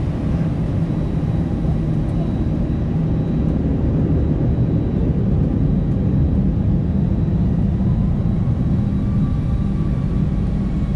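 Airbus A320-214's CFM56 jet engines at low taxi thrust, heard from inside the cabin as a steady low rumble while the aircraft lines up on the runway. A faint engine whine rises slightly near the end.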